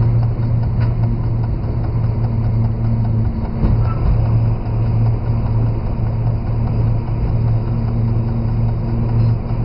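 Diesel engine of a BB 67000-series locomotive running steadily under light load, a deep hum heard from inside the cab as the locomotive moves at low speed, with a faint click or two.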